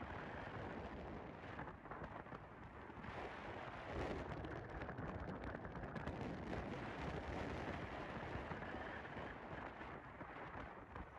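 A car driving along a road, heard from inside the cabin: a steady rushing road and wind noise with a low rumble.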